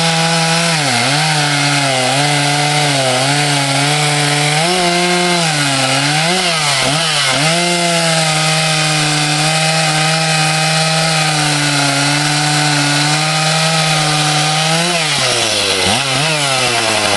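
Makita 90cc two-stroke chainsaw cutting through wood at full throttle. The engine note sags and recovers several times in the first seven seconds as the chain bites under load, then holds steady through a long cut. Near the end the revs dip twice and fall away.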